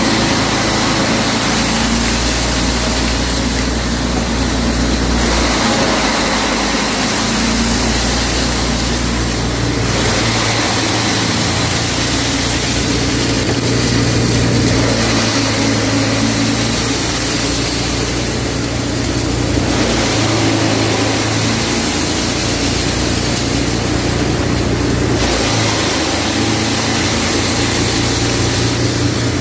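Plastic-flake dryer and its blower running steadily: a loud even rush of air through the ducting and cyclone over a steady motor hum.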